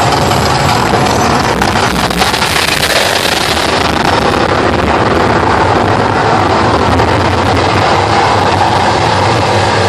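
The Mirage volcano show erupting: a loud, steady rushing noise with a low rumble underneath, from its gas fire jets and effects.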